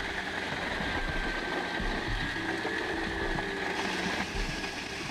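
A heavy forestry machine running steadily, engine and working parts together, with a faint high whine held through the sound.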